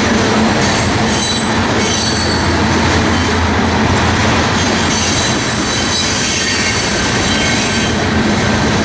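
Freight train of tank cars rolling past: a steady, loud rumble of steel wheels on the rails, with a faint high-pitched wheel squeal.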